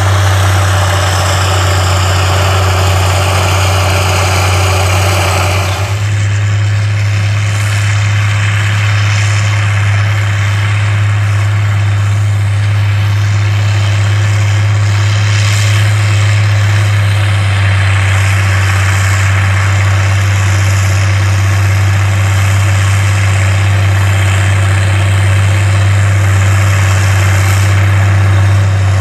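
White 4-270 Field Boss articulated four-wheel-drive tractor's 270-horsepower diesel engine running steadily under load while pulling a vertical tillage tool: a loud, even, low drone. About six seconds in, the higher part of the sound drops abruptly while the low drone carries on.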